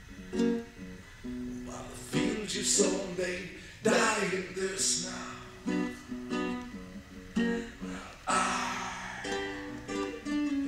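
Acoustic guitar playing: picked notes and ringing chords, broken by a few loud strums.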